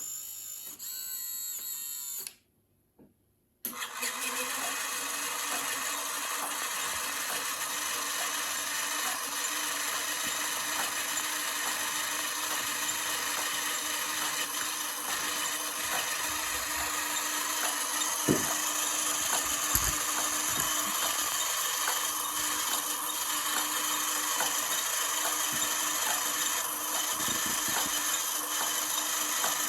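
Small power tool motor running briefly, cutting off about two seconds in, then starting again and running steadily with an even hum.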